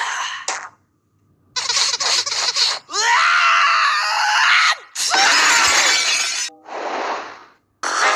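A run of cartoon sneezes cut one after another, each a separate short clip with brief breaks between. In one, a voice rises in a drawn-out build-up before a loud, noisy sneeze burst.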